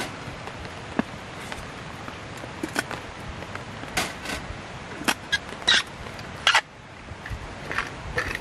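Scattered light clicks and knocks of a stainless tumbler and small tableware being set down and handled on a wire-mesh grill table, over a steady hiss. A cluster of knocks comes past the middle, the last the loudest, after which the hiss drops away.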